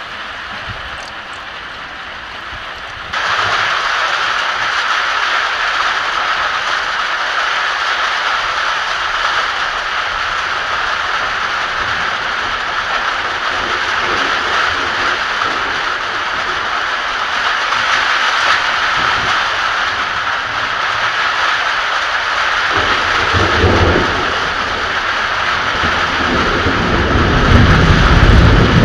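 Heavy rain falling in a steady, loud hiss that jumps up abruptly about three seconds in. Thunder rumbles low about 23 seconds in and again, louder, near the end.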